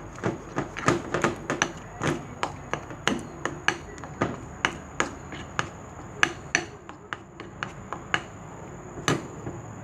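Spoon knocking against a bowl while beating a thick batter, a quick irregular run of sharp clinks, about three a second.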